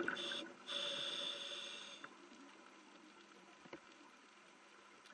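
Underwater sound on a coral reef: a rushing, bubbly water noise for about the first two seconds, breaking off briefly about half a second in, then a faint steady hiss with a few scattered sharp clicks.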